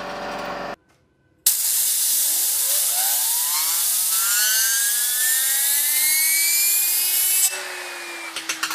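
A homemade fidget spinner being driven up to high speed: a loud hissing rush with a whine that climbs steadily in pitch for about six seconds. Then the rush stops abruptly and the whine slowly sinks as the spinner coasts. It opens with a steady mechanical hum that cuts off before a second in.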